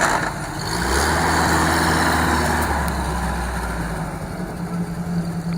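Scania V8 truck engine running, pulling harder and louder from about a second in, then easing back near the four-second mark.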